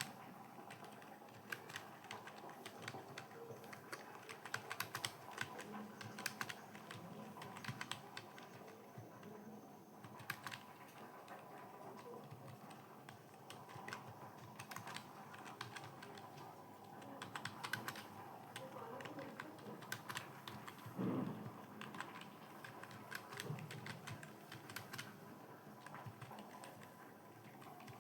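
Computer keyboard being typed on continuously and fast, a dense irregular stream of key clicks with a few louder keystrokes.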